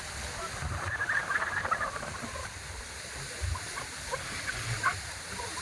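Gusty low wind rumble over a steady hiss at a moving boat's bow, with scattered short high squeaks or chirps, most of them about one to two seconds in and again near the end.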